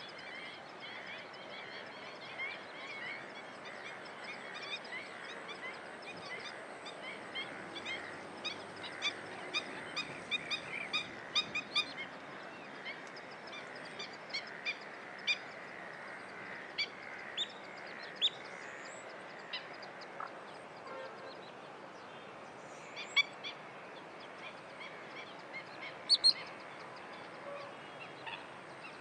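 Wild wetland birds calling: many short, sharp calls in quick runs, thickest in the middle, with a few louder single calls near the end, over a steady background hiss.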